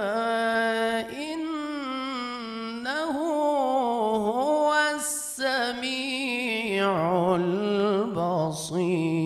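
A man reciting the Quran in melodic tajweed style into a microphone, drawing out long, ornamented held notes. There are short breaks about five seconds in and again near the end, and his voice settles lower about seven seconds in.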